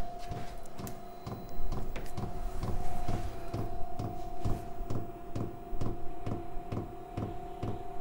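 Chinese 8 kW diesel air heater running, its fuel dosing pump ticking evenly about twice a second over a steady motor whine.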